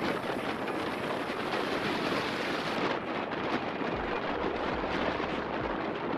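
Steady rush of wind over the phone's microphone while riding a bike.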